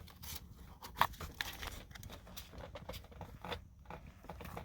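Scattered small clicks and light plastic handling noises from parts and connectors being worked loose in a car's steering column, with one sharper click about a second in.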